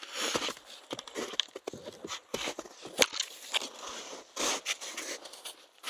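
A hiker's footsteps on a trail of old snow, dirt and dry fallen twigs: uneven steps of crunching and scuffing with sharp clicks and cracks among them.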